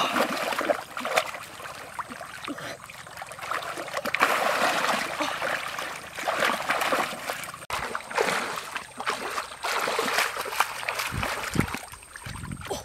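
Muddy shallow water sloshing and splashing in irregular bursts as hands grope and stir through the mud. A few dull low thumps come near the end.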